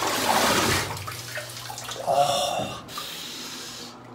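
A young man's breathy, strained yell, followed about two seconds in by a short voiced cry, over a low steady hum.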